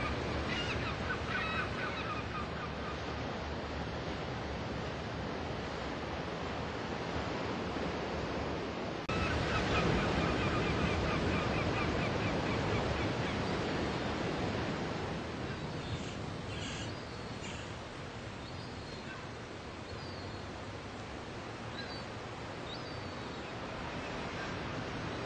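Steady wash of sea surf with birds calling over it: quick runs of repeated calls near the start and again just after a cut about nine seconds in, then scattered short chirps.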